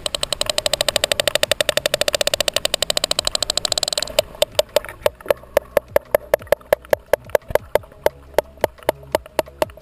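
Sperm whale clicking underwater: a fast, buzzing train of clicks that slows about four seconds in to separate, evenly spaced clicks, several a second.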